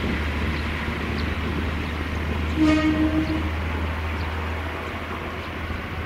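Tarumi Railway single-car diesel railcar pulling away, its engine a steady low drone, with one short horn blast, under a second long, about two and a half seconds in.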